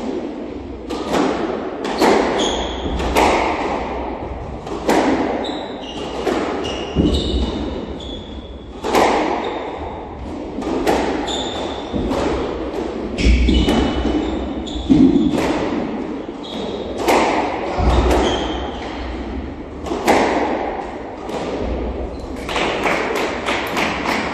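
A squash rally: the ball cracks off rackets and the court walls every second or two, with short high squeaks of court shoes on the hardwood floor between the hits.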